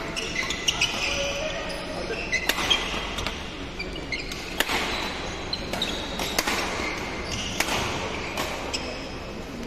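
Badminton doubles play: a string of sharp, irregularly spaced racket hits on the shuttlecock, with shoes squeaking briefly on the court floor.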